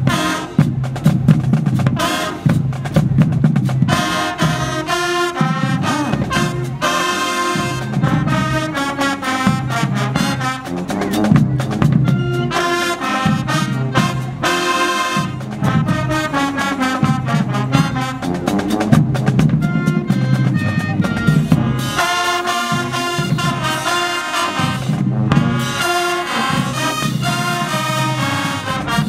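High school high-step marching band playing a brass tune, with trumpets, trombones and sousaphones over a steady drumline beat.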